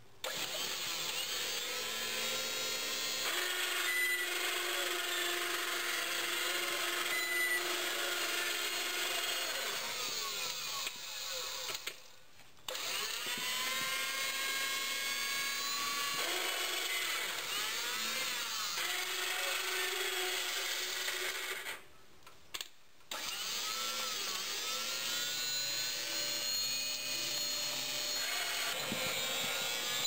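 Electric motors of a homemade battery-powered garden-tractor conversion whining as it drives and works, the pitch rising and falling with motor speed. The whine cuts out briefly twice.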